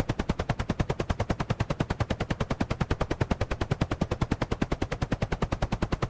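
Helicopter rotor blades chopping at a steady fast rate of about ten beats a second, with no engine noise.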